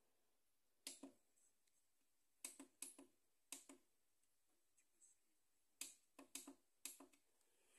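Near silence broken by about a dozen faint, short clicks, coming in small quick clusters spread through the stretch.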